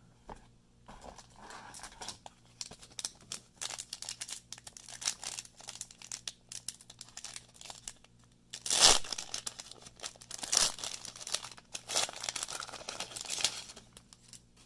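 A Magic: The Gathering booster pack's foil wrapper crinkling in the hands and being torn open, with a loud rip about nine seconds in followed by more crinkling and tearing.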